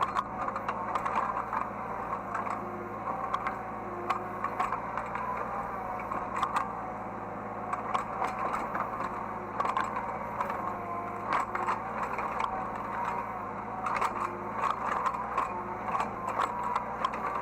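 Hydraulic excavator heard from inside the operator's cab: the engine runs steadily under a wavering whine, with frequent clicks, knocks and rattles as the machine works.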